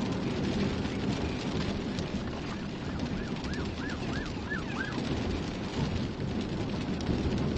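Heavy rain hitting a moving car, with tyre noise on a wet road. A faint, quick rising-and-falling tone repeats about six times in the middle.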